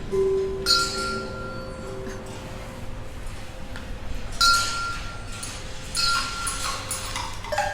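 Balls in a rolling-ball machine striking chimes: a few sharp clinks, each leaving a clear ringing tone, with a tone from an earlier strike still sounding at the start.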